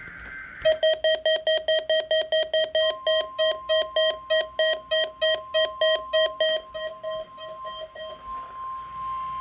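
NOAA Weather Radio weekly test signal. The tail of the digital SAME header gives way to an alert beeping rapidly, about four beeps a second, fading out near the end. The steady 1050 Hz warning alarm tone comes in about three seconds in and holds on.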